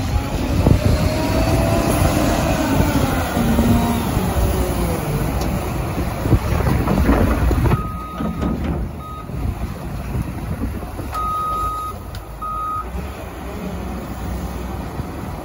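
Cat 950M wheel loader's diesel engine revving up and down as it raises a bucket of snow over a dump truck. About halfway through, a reversing alarm beeps four times, two longer and two shorter beeps, over the engine running lower.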